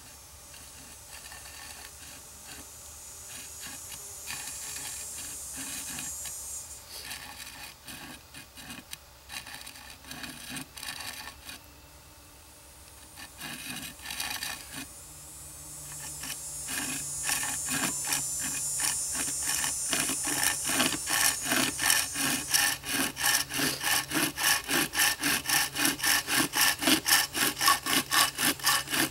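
Hand saw cutting through the top of a wooden axe handle just above the head, trimming off the excess wood. It starts with light, uneven strokes, then settles into a steady back-and-forth rhythm of about three strokes a second that grows louder in the second half.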